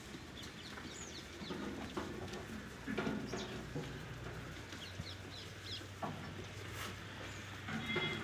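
Farmyard ambience: small birds chirping in short falling notes and fowl clucking now and then, over a low steady hum.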